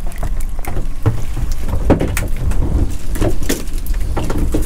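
Low, steady rumble of wind and boat noise, with a run of short knocks and rattles as a string of mackerel is hauled aboard a small fibreglass boat.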